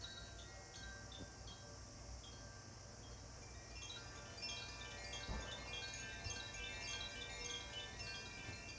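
Makino-style therapy chimes, tuned to the chakras, ringing in a sound bath. At first there are a few sparse high notes. From about four seconds in, many struck notes overlap and keep ringing.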